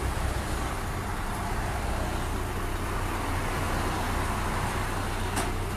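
Steady running of heavy diesel engines, a low hum over a haze of road noise, with one short click near the end.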